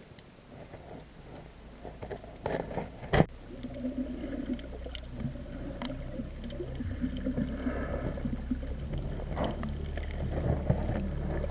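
Underwater sound picked up by an action camera's waterproof housing while snorkelling: muffled water movement and bubbling with scattered clicks, one sharp click about three seconds in. A low steady hum grows from about seven seconds in.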